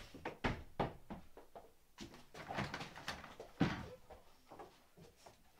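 A few sharp knocks and thumps, the loudest a little past the middle, with a stretch of rustling and scuffling between them.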